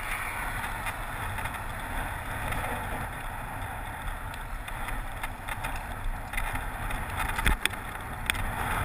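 Riding a bicycle on a tarmac road: a steady rush of wind on the microphone over the rumble of the tyres, with two sharp clicks near the end.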